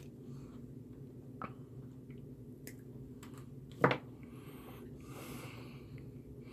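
Quiet handling of small electronic parts on a workbench: a few light clicks and one sharper tap about four seconds in, as a resistor is shaped and fitted into a circuit board, over a steady low hum.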